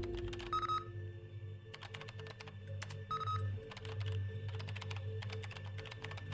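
Rapid clicking of typing on a computer keyboard, with two short electronic beeps, about half a second in and about three seconds in. Soft background music with a steady pulsing tone runs underneath.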